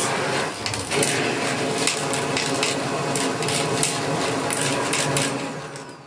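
Shark AX950 Apex DuoClean upright vacuum running under power from its hose switch, with irregular clattering knocks over the motor's steady noise. Near the end it is switched off and its motor runs down.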